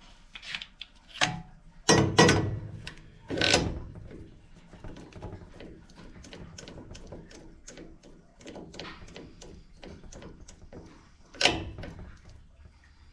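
Copper tubing cutter being clamped onto a copper pipe and worked by hand: a few sharp metal knocks, then a run of light, even clicks at about four a second as the cutter's knob and wheel are turned.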